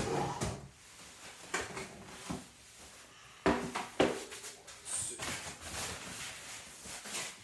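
Unpacking a bicycle wheel from its box: rustling of packaging with several sharp knocks and clicks, the loudest about three and a half and four seconds in.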